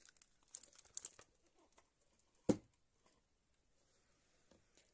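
Faint rustling and light clicks of packaging being handled, then a single sharp knock about two and a half seconds in as a small boxed cosmetic is set down.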